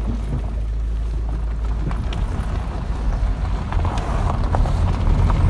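Car driving on a rural road: a steady low rumble of engine and tyres, mixed with wind noise on the microphone.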